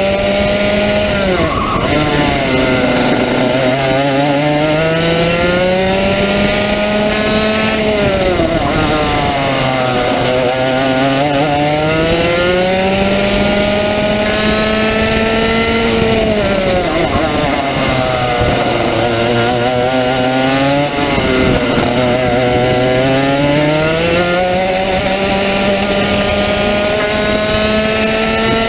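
Rotax Max 125 cc two-stroke kart engine heard from onboard the kart at racing speed. Its pitch climbs in long sweeps as the engine winds up, then drops sharply as the revs fall, about four times.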